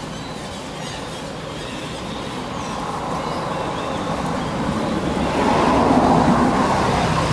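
A passing motor vehicle's engine and road noise, growing steadily louder and loudest near the end.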